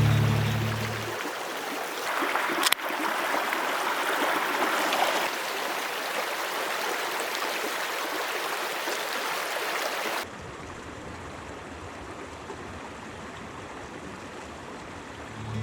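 Small rain-swollen mountain stream running over rocks, a steady rushing hiss. About ten seconds in it changes abruptly to a quieter, duller rush of water, with one sharp click a few seconds in.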